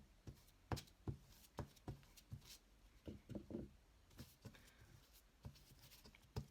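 Faint, irregular light taps and clicks of craft work on a tabletop: paper and small tools being handled.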